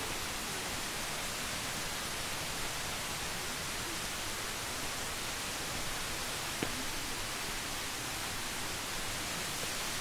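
Steady, even rushing hiss of forest ambience along a mountain trail, with one faint tick about two-thirds of the way in.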